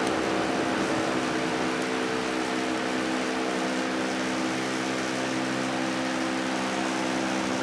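Steady machine hum with an even rushing hiss, unchanging throughout.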